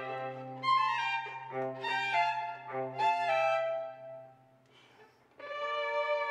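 String chamber ensemble of violins, viola and cello playing classical music: held notes and chord changes. The playing stops for about a second near the end, then resumes with sustained chords.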